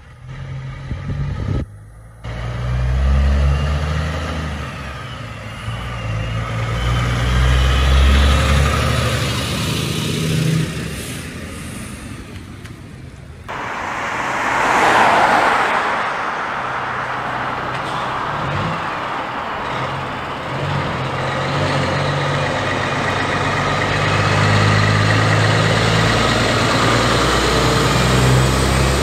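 Kenworth T909 prime mover's diesel engine hauling a loaded semi-trailer, its engine note rising and falling as it pulls away. After a brief rushing swell, the engine drone and tyre noise build as the truck approaches and drives past.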